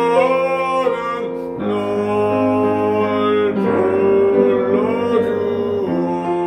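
A man singing a Korean art song in classical bel canto style over piano accompaniment, with long held notes and vibrato.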